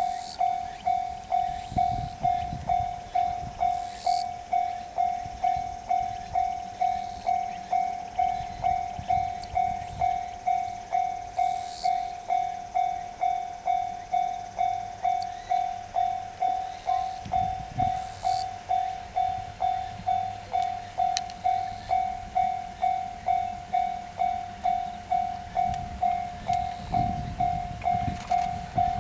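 Japanese railway level-crossing alarm ringing: a steady, evenly repeated ding at one pitch, about one and a half strikes a second, the signal that a train is approaching and the crossing is closed.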